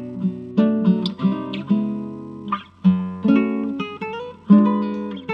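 Acoustic guitar strumming and plucking chords, each strike ringing out, as a song's closing instrumental.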